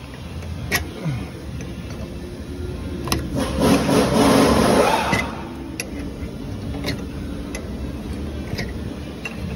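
A steady engine hum runs under shop work. About three seconds in, a loud hissing rush lasts roughly two seconds, and a few sharp metallic clicks fall at intervals.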